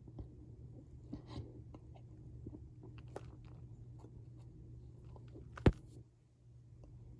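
Cornstarch powder being worked, giving soft scattered crunches and crackles, with one sharp, much louder click about five and a half seconds in. No squeak comes through. A steady low hum lies underneath.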